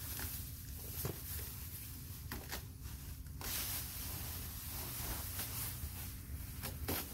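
Thin plastic masking sheeting rustling and crinkling as it is pulled and spread over a car, with louder crackles here and there.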